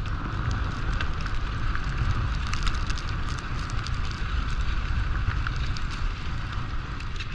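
Wind buffeting the microphone over a steady hiss of fast travel across snow, with scattered small ticks, during a dog-pulled race run.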